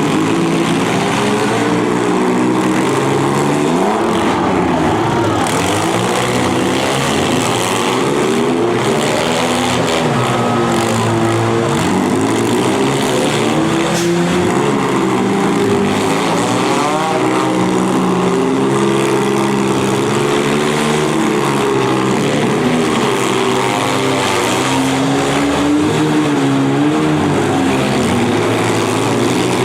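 Engines of several demolition derby cars running and revving together, each pitch rising and falling on its own, loud and continuous.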